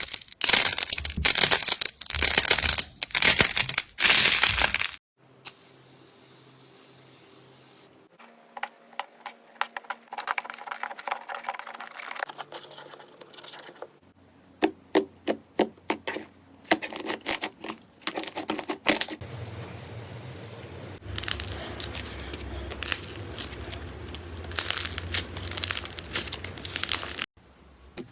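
Slime being squeezed and pulled by hand, giving crunchy crackles and sharp clicking pops. The texture changes every few seconds as one short clip follows another.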